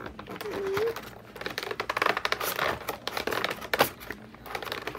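Stiff plastic toy packaging crinkling and crackling in quick runs of clicks as a figure is pried and pulled at inside it, with one sharp click about four seconds in.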